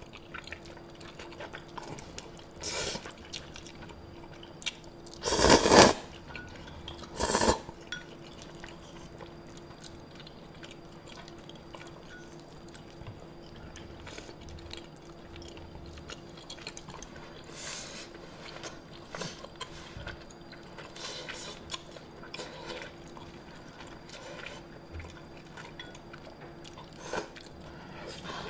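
Close-miked mukbang eating sounds from spicy rice cakes and ramen noodles: wet slurping and chewing, with the loudest slurps about five and a half and seven seconds in and quieter ones scattered after. A faint steady hum runs underneath.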